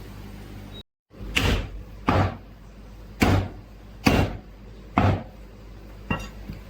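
Butcher's cleaver chopping pork on a wooden block: five heavy chops about a second apart, then a lighter one.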